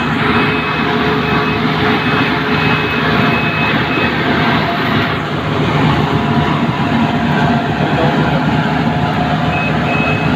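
Rice combine harvester running loud and steady, with its warning beeper sounding in quick repeated beeps through the first few seconds, stopping, and starting again near the end.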